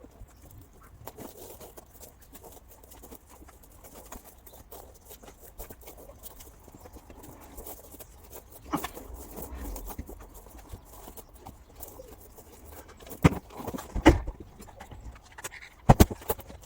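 Irregular light knocks and rustling as things are handled, with a few sharp, loud knocks near the end.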